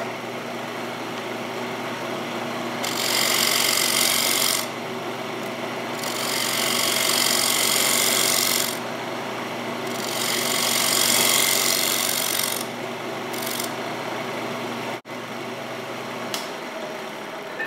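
Wood lathe running with a rectangular mahogany blank spinning, its motor humming steadily, while a scraper is pressed to the wood in several passes of a few seconds each, a harsh scraping that cleans up the surface.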